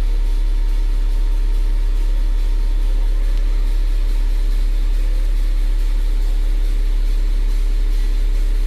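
Caterpillar 950H wheel loader's C7 diesel engine idling steadily once warmed to normal operating temperature: a constant deep drone with a few steady tones above it.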